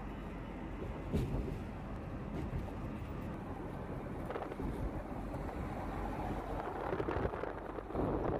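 Steady road and wind noise from a moving vehicle, with a few brief low bumps.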